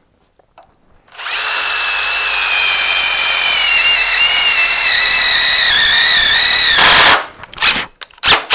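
Cordless drill driving a self-tapping screw into the aluminum bar of a sheet-metal brake: a steady motor whine starts about a second in and runs for some six seconds, dipping slightly in pitch as the screw bites. It ends in a short harsh burst, followed by a few sharp clicks.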